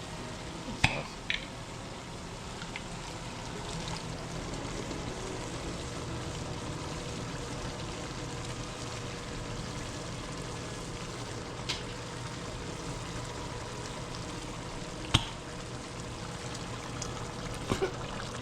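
Jarred spaghetti sauce being poured into a pan of cooking ground chicken and tomatoes, over a steady sizzle, with a few sharp clicks of utensil or jar against the pot.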